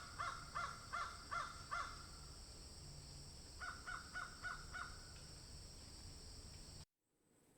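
Crow cawing in quick series: about six harsh caws in the first two seconds, then another run of about five a little later.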